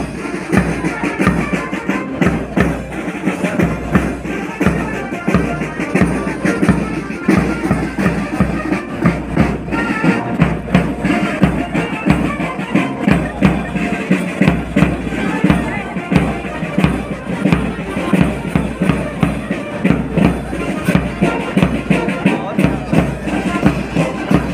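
A uniformed marching band playing a march, with a bass drum keeping a steady beat about twice a second, over crowd chatter.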